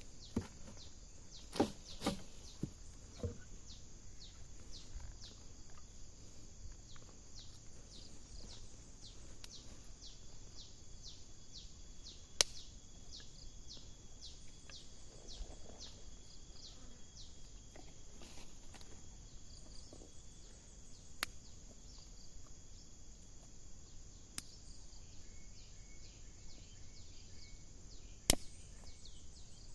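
Outdoor wildlife ambience: a high chirp repeated about twice a second for a stretch, a thin steady high tone, and a short trill near the end, with a few sharp clicks scattered throughout.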